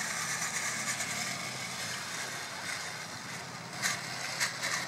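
Electric motor and drivetrain of an RC rock crawler whining steadily as it crawls over a dirt mound, with a couple of short knocks near the end as it rolls over the rough ground.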